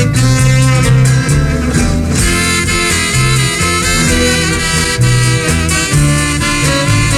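Upbeat swing-style music with horns and a walking bass line.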